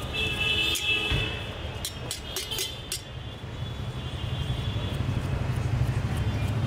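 Steady low street-traffic rumble, with a high ringing tone in the first second. From about one to three seconds in comes a run of sharp metal clicks: a knife blade striking the rim of a steel mixing tin while tomato is sliced into it.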